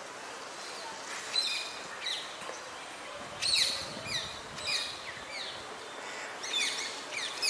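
Birds calling: short, falling chirps repeated every second or so, some in quick runs of two or three, over a steady outdoor hiss.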